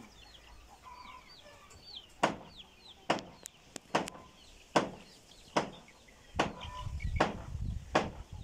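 Hammer blows nailing down corrugated slate roof sheets, sharp regular strikes about one every 0.8 seconds starting about two seconds in. Birds chirp throughout.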